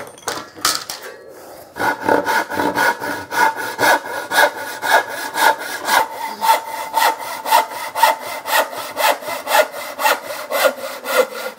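Hand saw ripping a wooden board along the grain with quick, even strokes, about three a second. The blade gives a steady ringing tone through the strokes. A few knocks come first as the board is set in the vise.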